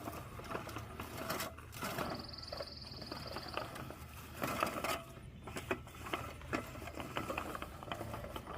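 Craftsman manual push reel mower cutting grass: the spinning reel blades whir and snip the grass, with a rapid run of clicks.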